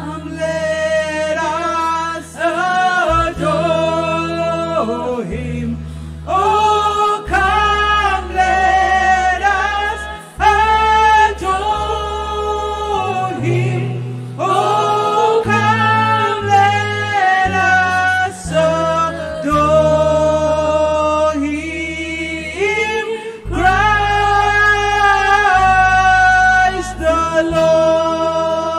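Live worship music: a woman singing lead into a microphone with long, held phrases, backed by other singers and a band with sustained bass notes.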